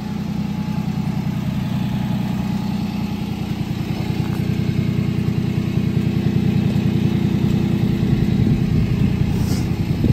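Honda Acty kei truck's small three-cylinder engine idling steadily with an even, fast pulse, growing a little louder past the middle.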